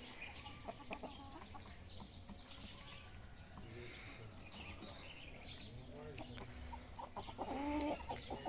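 Chickens clucking softly while they feed, with a louder run of clucks near the end.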